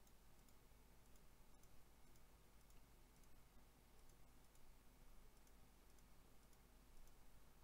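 Near silence with a string of faint computer mouse clicks, one for each face being selected.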